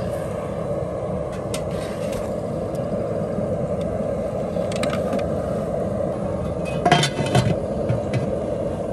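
Outdoor propane burner under a large aluminum boiling pot, burning with a steady rush while potatoes and onions boil. A few light metal clinks, then about seven seconds in the aluminum lid clatters as it is set on the pot.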